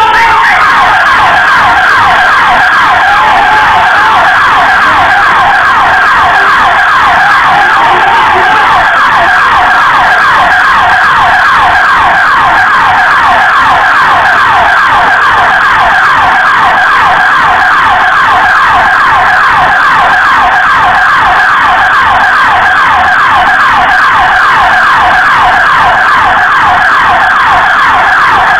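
Loud electronic siren or alarm wailing in fast, repeated upward sweeps, unbroken and at an even pace, then cutting off abruptly at the end.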